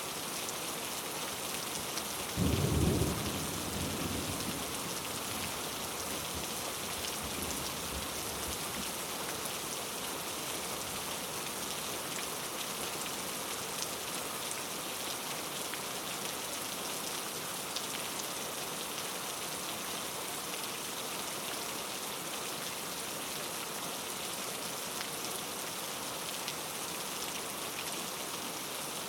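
Steady rain falling, an even hiss. About two and a half seconds in, a loud clap of thunder breaks out and rumbles away over the next few seconds.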